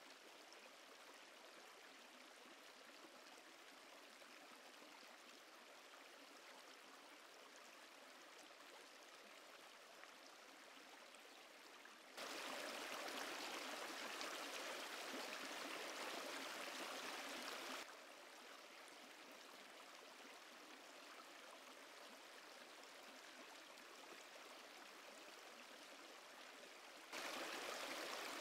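A shallow, rocky river running: a steady rush of water. It gets abruptly louder about twelve seconds in, drops back about six seconds later, and gets louder again near the end.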